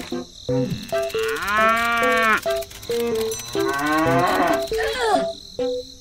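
A cow mooing twice, a long call about a second in and a second one near four seconds, each rising then falling in pitch, over a light plinking background tune.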